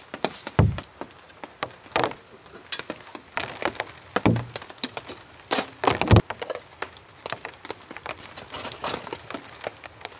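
Small camp pot and cooking gear being handled on a folding camp table: irregular clicks and knocks, with a few heavier thumps about half a second, four and six seconds in.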